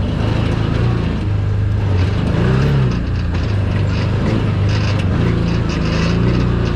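Side-by-side UTV engine running steadily under way on a dirt trail, its pitch briefly rising and falling about two and a half seconds in.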